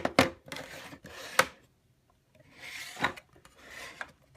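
Plastic toy fridge being handled: a few sharp clicks and knocks with stretches of plastic scraping and rubbing in between.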